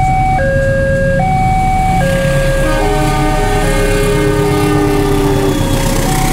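A railway level crossing warning alarm chimes two alternating tones, each lasting a little under a second. About two seconds in, a diesel locomotive's multi-note horn sounds for roughly three seconds and drops in pitch as the train comes past. The crossing chime resumes near the end over the rumble of the passing train.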